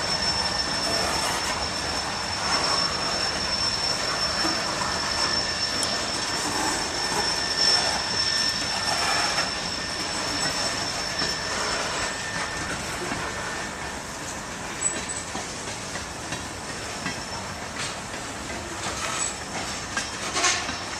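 Freight train rolling past, wheels clicking over the rail joints, with a thin, steady high-pitched wheel squeal. The sound gradually gets quieter toward the end.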